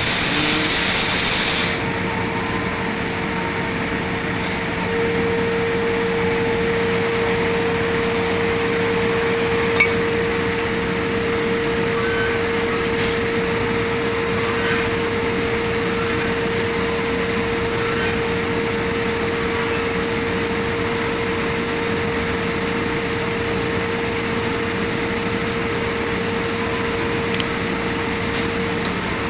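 Steady mechanical hum carrying a constant mid-pitched tone that grows stronger about five seconds in, with a single knock about ten seconds in.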